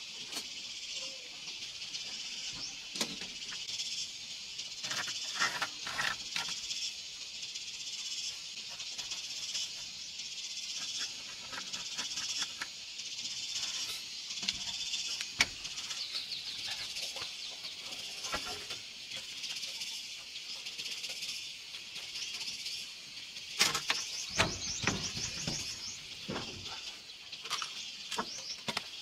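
Steady high-pitched insect chorus, with scattered knocks and taps of wooden boards being handled, a cluster of them near the end.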